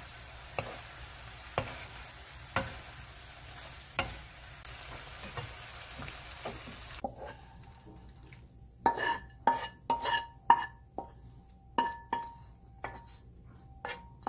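Anchovies sizzling in a wok as a wooden spatula stirs them, about one stroke a second. About halfway through the sizzle stops, and the spatula scrapes and knocks the anchovies out of the wok onto a metal plate, each knock ringing briefly.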